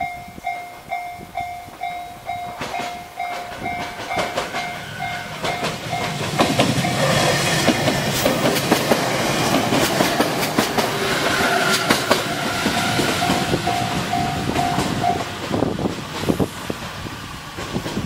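JR Kyushu 817 series two-car electric train passing over a level crossing, its wheels clicking over the rail joints. A Japanese level-crossing warning bell rings at about two dings a second throughout and stops a few seconds before the end as the train clears.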